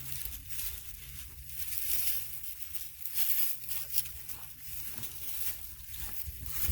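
Manual post hole digger biting into soil: irregular rasping, crunching scrapes of the blades in dirt, over a steady low rumble of wind on the microphone.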